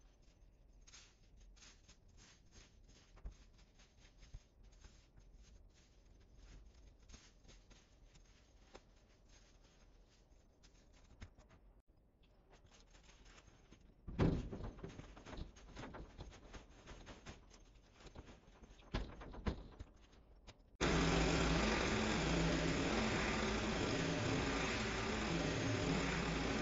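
Soft rustling and crackling of leafy hedge clippings being packed by hand into a plastic wheelie bin. About halfway through comes a sharp thump, followed by knocks and rattles as the full bin is tipped into a trailer. For the last several seconds a pole hedge trimmer runs steadily and loudly, cutting the hedge.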